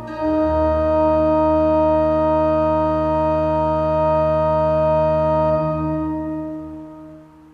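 Johannus Ecclesia digital church organ sounding a full closing chord with deep bass, held steady for about five seconds and then fading away near the end.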